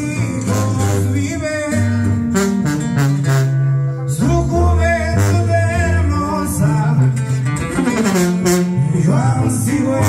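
Sierreño music with tuba: a tuba plays a moving bass line under plucked guitars, with a voice singing over them.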